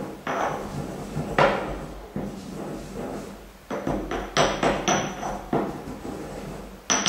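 Pestle pounding and grinding spice in a mortar, crushing it to a fine powder: a run of irregular knocks that come closer together in the second half.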